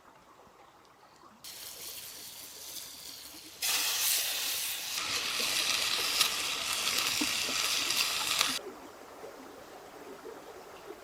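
Heavy rain falling, a dense hiss with small splashes, which jumps up sharply about four seconds in and drops away suddenly about three seconds before the end.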